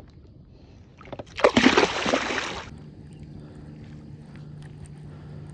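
A loud splash of water about a second in, lasting over a second, then a steady low hum with faint water sounds around the kayak.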